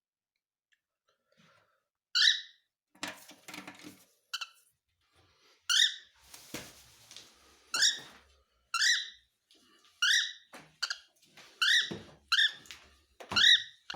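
Cockatiel giving a series of short, sharp, rising chirps, about ten of them, starting about two seconds in and coming more often towards the end. Scratchy rustling and light taps fall between the chirps.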